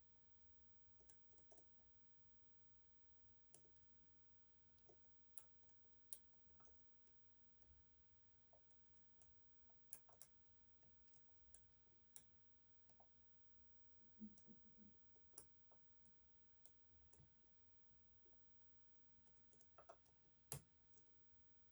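Faint, irregular clicks of a short flat hook picking the unsprung sliders of an EVVA 3KS high-security lock held under a tensioner, with a louder click near the end.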